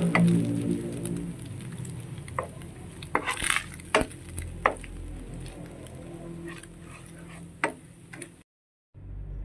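Wooden spatula scraping and knocking in a nonstick frying pan as fish roe, garlic and onion are stir-fried, over a faint sizzle; the knocks come irregularly, the loudest about three to four seconds in. A low droning hum fades out during the first second.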